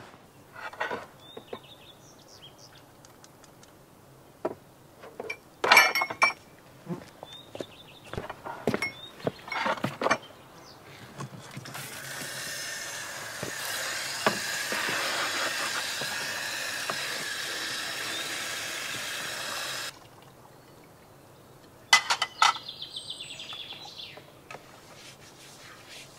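Scattered light knocks and clinks, then about eight seconds of water running from a tap and splashing into a washbasin, which cuts off abruptly. A few more clicks follow near the end.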